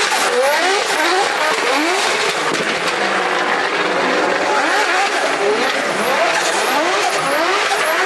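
Drift car engine revving hard with its pitch climbing again and again, several times a second, as the throttle is worked through a slide, over continuous tyre noise from the spinning rear wheels.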